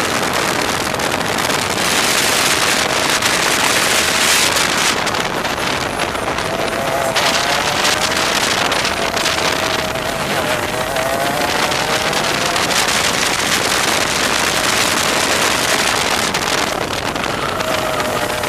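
125cc two-stroke TaG kart engine heard from the driver's seat under racing load, its pitch rising and falling as the throttle is worked through the corners, over a loud rushing noise of wind on the onboard microphone.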